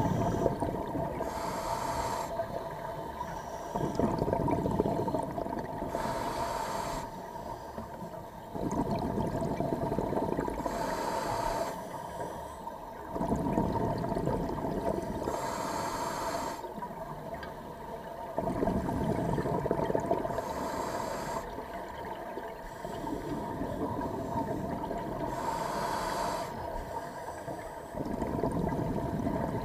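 Scuba diver breathing through a regulator underwater: a short hissing inhale about every four to five seconds, each followed by a longer bubbling rush of exhaled air, six breaths in all, over a steady faint hum.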